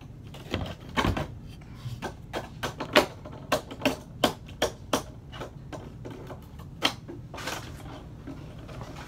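Close handling noise: a run of sharp, irregular taps and knocks, about two or three a second for the first five seconds and then a few more spaced out, as fingers handle and adjust the camera.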